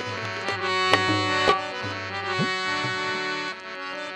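Instrumental break in Punjabi Sufi folk music: a harmonium holds reedy chords over hand-drum strokes. Two sharp drum strokes stand out about a second and a second and a half in.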